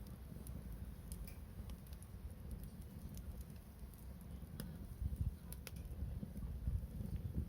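Wood fire crackling, with sparse sharp pops and snaps over a steady low rumble.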